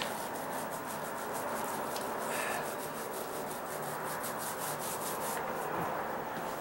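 Paint roller on an extension pole rolling paint across a rough OSB deck floor: a steady rasping rub with a quick pulsing, several pulses a second.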